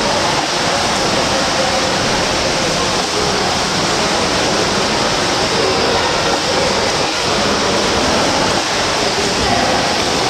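Swimmers splashing as they swim front crawl: a steady wash of water noise in an indoor pool.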